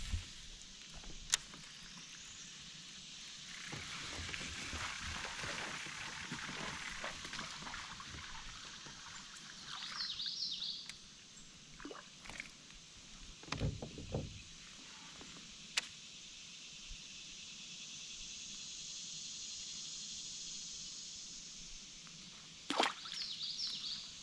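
Water sloshing and splashing around a fishing kayak, with a few knocks against the hull, one heavier thump about halfway through.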